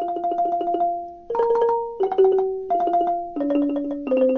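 Instrumental music interlude of quickly repeated struck notes, about eight a second, the chord shifting every half second to a second.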